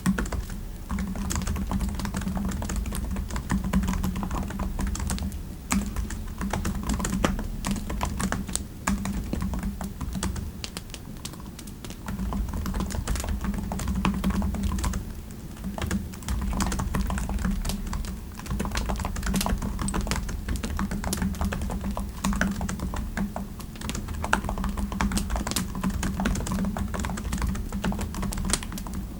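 Typing on a computer keyboard: fast, continuous keystrokes with a few brief pauses.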